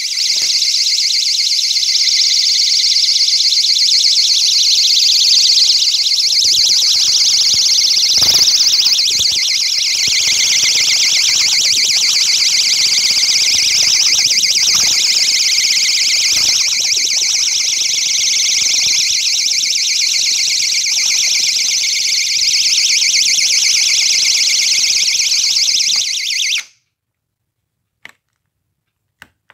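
GE door alarm's piezo siren sounding continuously: a loud, high-pitched, rapidly fluttering tone that cuts off suddenly near the end, followed by a few faint clicks.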